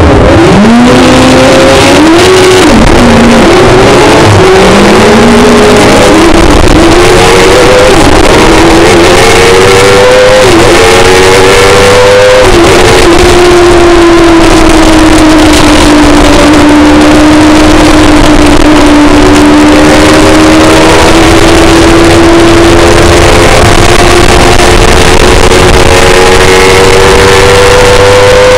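Race car's Kawasaki ZX-10R motorcycle engine at full throttle from a standing start, its pitch climbing and dropping at several quick upshifts in the first dozen seconds. After that it holds one gear, the pitch sagging a little through a long bend and then rising slowly as speed builds.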